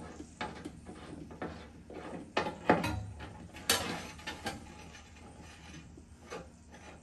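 A run of metal clicks, knocks and scrapes from a boat fuel tank's metal dipstick being worked in its fitting and drawn out to check the fuel level. The sharpest knocks come a few seconds in, and the sounds grow fainter near the end.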